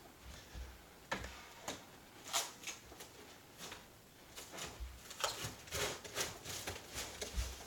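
Handling noises from working on a pinball machine: scattered clicks, knocks and short scraping rubs, coming thicker in the second half.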